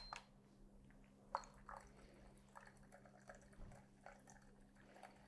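Faint, uneven trickle and drips of hot water poured from a gooseneck kettle into a glass carafe, diluting (bypassing) Aeropress coffee concentrate.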